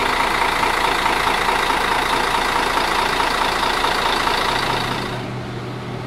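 Mercedes-Benz double-decker bus idling while parked: a steady mechanical noise with a high whine. About five seconds in, the sound drops to a quieter, lower steady hum.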